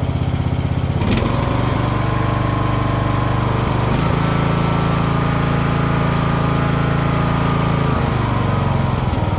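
Craftsman riding lawn mower's small engine running steadily. A click comes about a second in, and the engine speed steps up then and again near four seconds, settling back down near the end.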